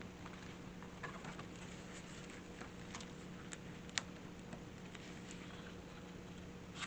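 Quiet room with a steady low hum and scattered light clicks and ticks, the sharpest about four seconds in.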